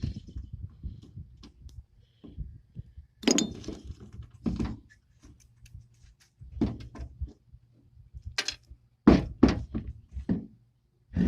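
Irregular metal clunks and knocks as a jet ski starter motor is worked apart, its armature being pushed out of the magnetic housing. The knocks come unevenly, several of the loudest in the second half.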